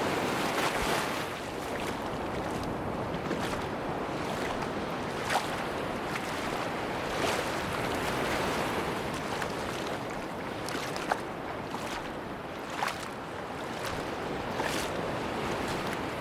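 Sea waves washing on a beach: a steady rush of surf, with a few brief sharp clicks scattered through it.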